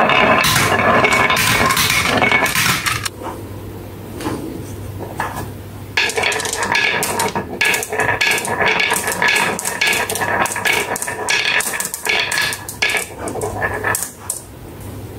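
Marbles rolling down a wooden zigzag track, rattling along the grooves for about three seconds. After a quieter spell, a dense run of clicks starts about six seconds in, as marbles roll in and knock against one another and the wooden block where they queue up.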